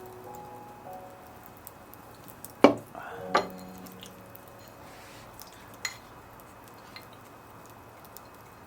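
Tableware clinking: two sharp knocks about half a second apart, the second ringing briefly, like a dish or cup set down, then a lighter tick a few seconds later. A few soft notes of background music fade out at the start.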